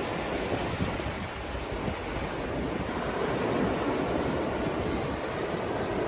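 Sea surf breaking and washing up a sandy beach: a steady rush of waves that swells slightly about halfway through.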